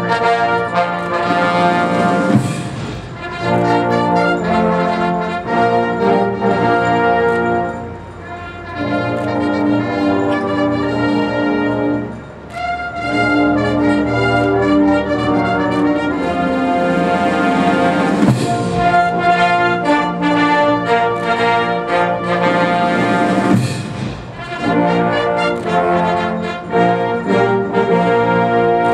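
Military brass band playing a slow piece in sustained chords, with trombones and trumpets, phrase after phrase with brief breaks between them. The music stops near the end.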